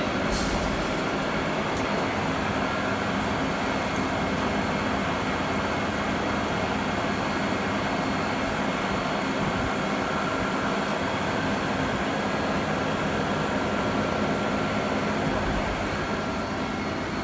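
Steady machinery hum and whir: an even, constant drone with a faint high steady tone, and a brief click just after the start.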